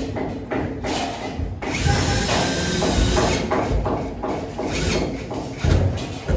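Irregular knocks, clatter and scraping from work on a steel-channel suspended ceiling frame.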